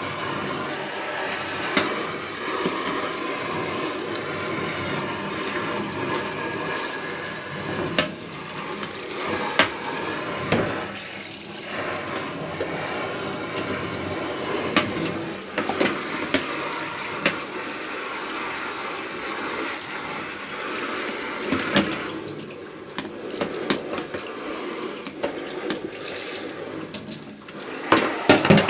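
Water running from a tap into a sink, steady throughout, with scattered knocks and clicks.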